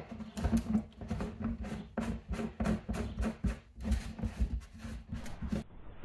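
Plastic spout being screwed onto a red plastic gas can: a quick run of irregular plastic clicks and ticks, over a steady low hum, cutting off shortly before the end.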